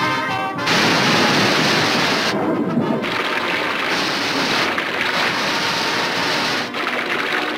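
Water from a fire hose rushing and spouting up out of pool table pockets, a cartoon gushing-water effect that cuts in about half a second in, after a brief bit of brass orchestral music. The rush goes on loud and steady, with a couple of brief dips.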